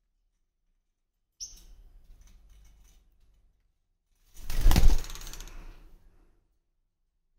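A parrot flapping its wings in a short, loud flurry about four seconds in, preceded by a sharp click and light rustling of the bird moving about.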